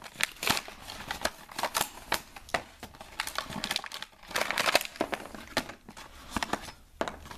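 Clear plastic blister packaging of a toy blaster crackling and snapping in quick, irregular clicks as it is pried open and the blaster is worked out, with a denser stretch of crinkling a little past halfway.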